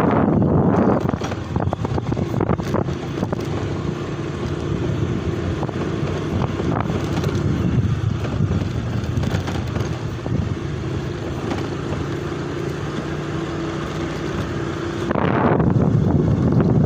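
Motorcycle engine running steadily while being ridden. Wind buffets the microphone in the first second and again in the last couple of seconds.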